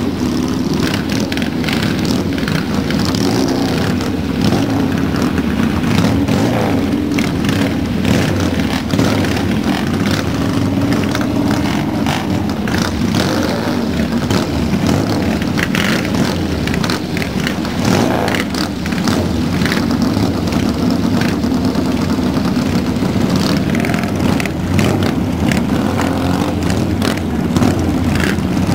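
A group of 1960s British motorcycles running and revving as they pull away one after another, their engines overlapping in loud, continuous exhaust noise.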